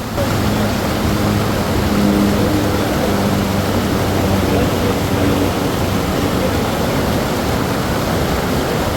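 Waterfall rushing steadily, with a low engine drone over it that fades out about halfway through.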